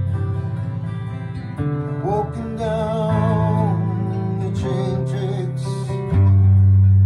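Acoustic guitar strummed in held chords, with a man singing long wavering notes about two seconds in and again briefly around five seconds.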